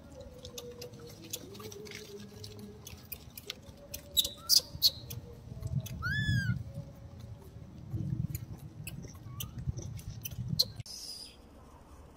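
Infant macaque giving short high squeaks that rise and fall, the clearest about six seconds in, among scattered sharp clicks.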